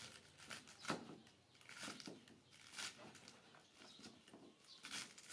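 A cleaver chopping a vegetable on a cutting board: a series of sharp, irregular chops.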